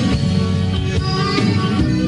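Live band performance of a folk-rock song: an instrumental passage with guitar and a steady beat, no singing.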